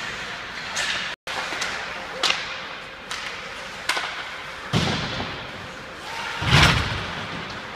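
Ice hockey play in a rink: a string of sharp cracks of sticks and puck at uneven intervals, about five in all. The loudest is a heavy thump about six and a half seconds in.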